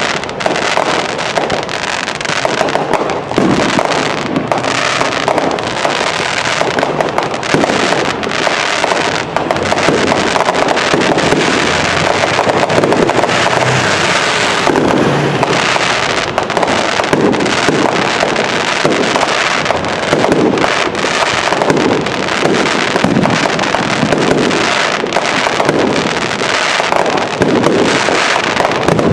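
Fireworks going off in a continuous barrage: many overlapping bangs in quick succession with no break, and some deeper booms near the middle.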